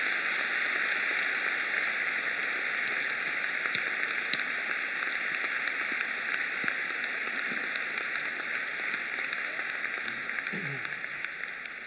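A large hall audience applauding: dense, steady clapping that fades away near the end.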